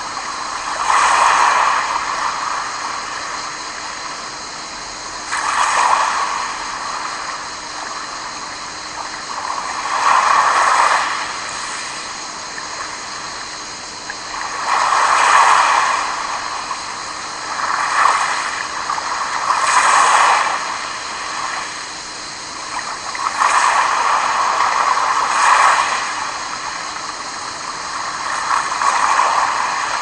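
Small sea waves washing up and draining back over a pebble beach. Each wash swells and fades over a second or two, one every few seconds, with a soft steady sea hiss between them.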